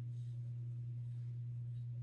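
A Gillette Aristocrat safety razor scraping stubble on the neck on an across-the-grain pass: two faint short strokes, one near the start and one near the end, over a steady low hum.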